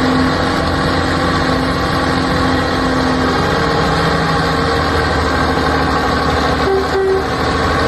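A large farm tractor's diesel engine running steadily and loudly under load in mud.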